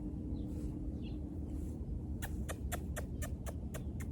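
A person making a rapid series of kissy noises with the lips, short squeaky smacks about four or five a second, starting about halfway through. It is a conditioned alert sound that calls the dog's attention back to the trainer.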